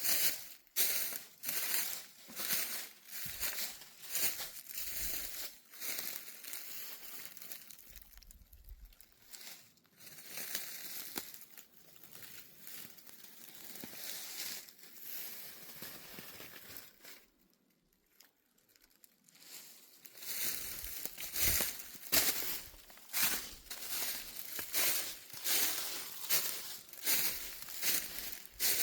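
Footsteps crunching through dry fallen leaves at a walking pace. The steps grow softer in the middle, pause briefly, then come back louder.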